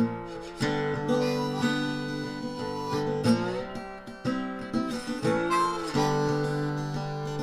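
Background music: a strummed acoustic guitar playing a sequence of chords.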